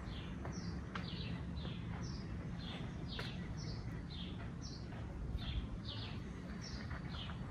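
A songbird singing: a steady run of short, falling chirps, about two a second, alternating between a higher and a lower note.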